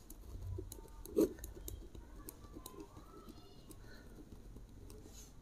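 Pen writing on notebook paper: faint, scattered scratching strokes, with one short, louder knock about a second in.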